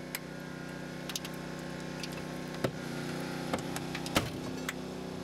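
Hydraulic rescue cutter biting through a car's B-pillar at the rocker panel, the hydraulic power plant running steadily beneath it. Several sharp cracks of the steel giving way come through, the loudest about four seconds in.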